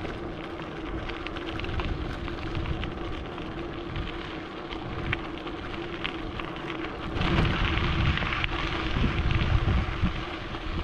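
Bicycle tyres rolling over a gravel road: a steady crackle of small stones under the wheels, with a faint steady hum beneath. From about seven seconds in, a low wind rush on the microphone grows louder.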